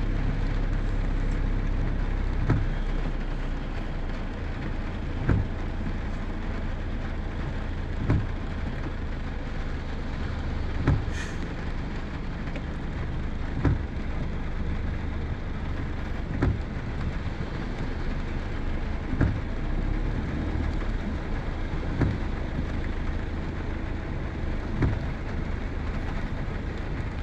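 Heavy rain on a vehicle with its engine running as a low steady rumble, and a regular knock about every three seconds, like windscreen wipers beating.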